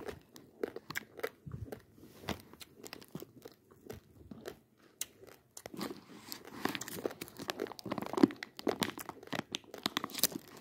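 A metal spoon scooping and stirring dry, uncooked basmati rice in a plastic packet: a dense crunchy rattle of grains with crinkling of the packet, thicker and louder in the second half.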